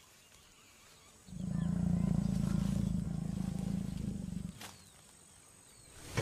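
Jaguar giving a low, continuous growl for about three seconds, starting a little over a second in. It is a warning growl in a tense face-off between a courting male and female.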